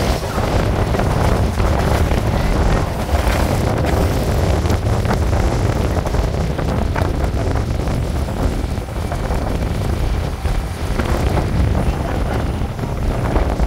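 Steady low rumble of a moving MMTS electric local train, heard from its open side with strong wind buffeting the microphone.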